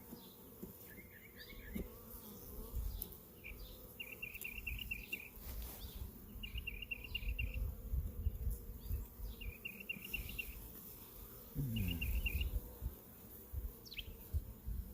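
Honey bees buzzing around an open hive, one bee flying close past with a falling buzz about twelve seconds in. A short, rapid high trill repeats about five times in the background.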